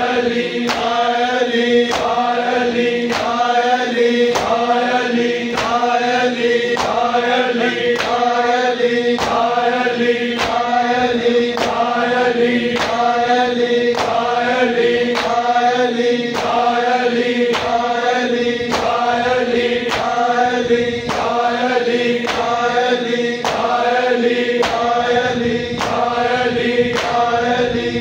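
Devotional chanting for a Shia noha: voices repeating a short phrase about once a second over a steady hummed drone, with a sharp tick on each beat.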